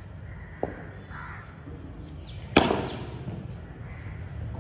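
Cricket ball knocks: a soft, short knock just after half a second in, then a loud sharp crack with a brief ringing tail about two and a half seconds in.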